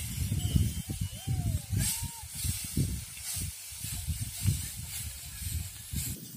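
Dry rice straw rustling and crunching as bullocks trample it and it is tossed with sticks during threshing, over irregular low rumbling. A few short rising-and-falling tones sound in the first two seconds.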